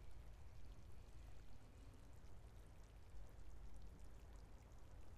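Faint water trickling and lapping among rocks at the edge of a flooding tidal lagoon, with small scattered drips and a steady low rumble underneath.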